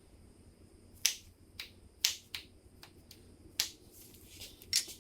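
Click-type torque wrench clicking off on the crankshaft main-cap bolts: the bolts are at the wrench's set torque. It gives several sharp single clicks about a second apart, with two close together near the end.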